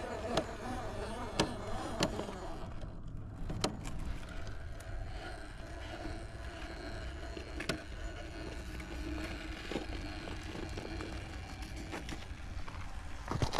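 Radio-controlled car running on JConcepts Tusk tyres, the tyres rolling over the ground with a steady rumble and a few sharp clicks and knocks.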